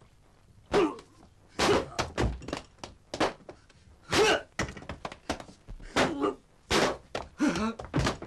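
Fistfight sound effects: a rapid string of about a dozen punch impacts, with short men's grunts on some of the blows.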